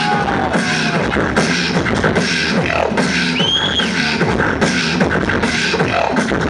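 Solo beatboxing into a handheld microphone over a PA: a fast, dense rhythm of mouth-made drum hits over a low sustained tone. A short high whistle-like tone comes in a little past halfway.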